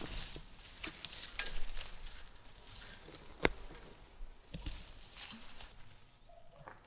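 Handling noises: irregular light clicks, taps and rustling, with one sharper click about three and a half seconds in.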